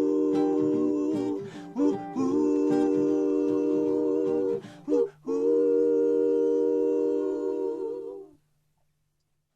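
Female vocal group holding the song's closing harmonised chords over acoustic guitar: two long held chords with a short break between them, ending about eight seconds in, a faint low note lingering a moment longer.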